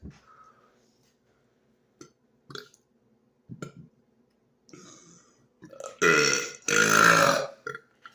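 A man's loud burps from chugging fizzy soda: two long, deep burps back to back about six seconds in, the second one longer, after a few faint small noises.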